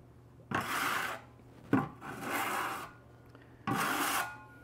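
A metal trowel scraping and scooping loose, pudding-consistency grout from a plastic bucket, in four separate scrapes.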